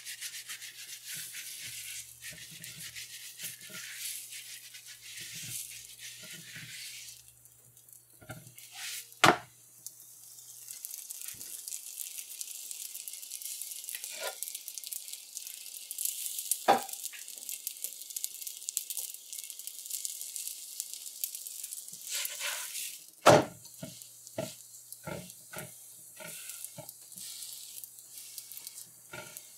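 Oiled roti sizzling steadily on a hot cast-iron tawa. Sharp knocks come a few times, and near the end there is a run of quick taps as a slotted spatula presses and turns the roti on the pan.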